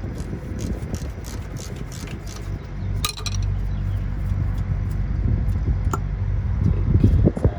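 Metal clinks and clatter from brake parts and hand tools being handled at a car's rear wheel, with a sharp cluster of clinks about three seconds in and another single click near six seconds, over a steady low rumble.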